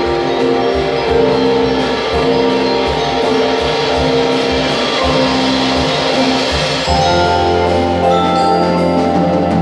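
High school band playing live: sustained pitched chords over scattered percussion strokes, with a low held note coming in about seven seconds in.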